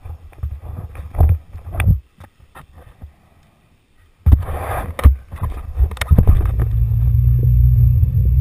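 Wind rumble and bumps on a helmet camera's microphone as a downhill mountain bike rolls along tarmac, dropping almost to silence for about two seconds. Then comes a sudden loud rustle with sharp knocks as the camera is moved about, and a steady low rumble from about six seconds in.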